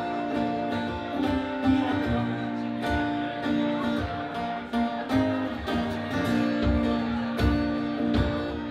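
Live band playing an instrumental passage: strummed acoustic guitars over held keyboard chords, with electric guitar.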